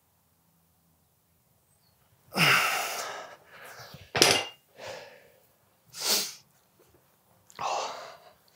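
A man breathing out hard several times, winded after a set of dumbbell exercises, starting a couple of seconds in after near silence. About four seconds in, a short metallic clank as the dumbbells are set down on the floor.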